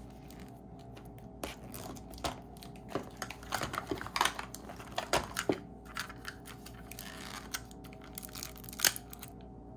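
Small plastic toy capsule being handled and opened by hand, with crinkling plastic wrapping: irregular crackles and clicks, the sharpest one near the end.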